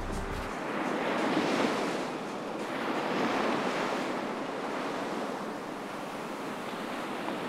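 Small waves breaking and washing up onto a sandy beach, the surf swelling louder about one and a half and three seconds in, with some wind on the microphone.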